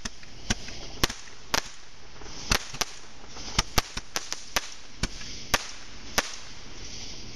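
A small consumer firework giving off about a dozen sharp cracks at irregular intervals over a steady hiss of burning. The cracks stop about six seconds in.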